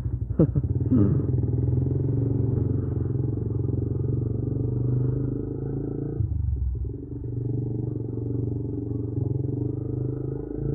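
Motorcycle engine running steadily while under way, with a brief dip in engine sound about six seconds in. Two short falling sounds come near the start.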